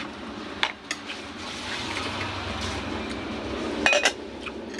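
Aluminium cooking pot's lid clinking: a couple of light knocks under a second in, then a sharper metallic clank with a brief ring near the end as the lid is lifted.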